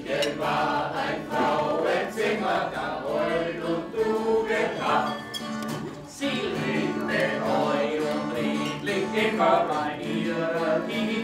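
Singing to a strummed acoustic guitar, a folk-style song with the voice carrying the tune over the guitar.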